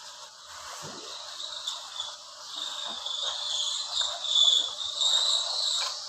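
Insects, likely crickets, chirping in a steady, high-pitched chorus that swells and fades slightly, with a few faint knocks.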